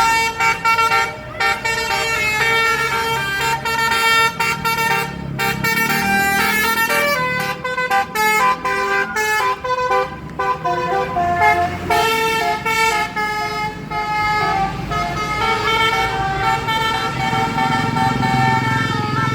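A bus's Basuri musical air horn playing a long tune of quickly changing notes, the 'telolet' horn music, with the bus engine running underneath.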